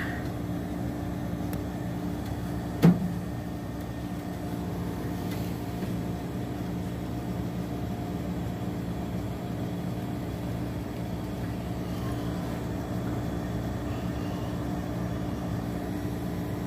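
Split-type air conditioner's outdoor unit running steadily, its compressor humming with a few constant low tones, while refrigerant is charged into the undercharged system. A single sharp click about three seconds in.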